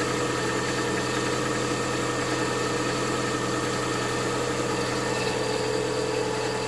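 Lada Vesta 1.8-litre four-cylinder engine idling steadily while cold, with the knock it makes on a cold engine.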